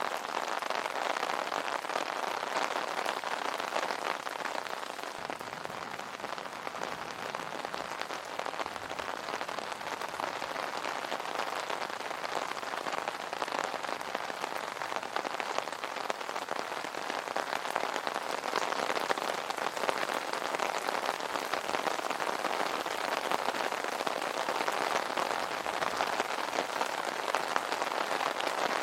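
Steady rain falling on an umbrella canopy: a dense, even spray of drop impacts that holds without a break.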